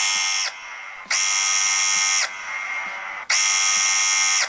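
Smartphone earthquake-alert alarm sounding: a harsh buzz about a second long, repeating roughly every two seconds, with a fainter tone between the buzzes. It is the alert the phone gives when the ESP32's MPU6050 accelerometer picks up a jolt.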